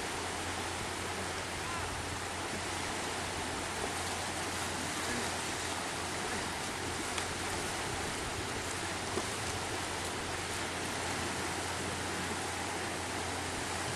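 Steady wash of lake waves on a sandy beach, an even hiss-like noise with no breaks.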